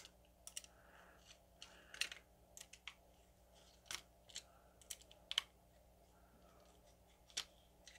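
Faint, scattered small clicks and taps of hands handling a small adapter board, screws and a screwdriver, about a dozen of them over an otherwise very quiet background, the sharpest a little past the middle.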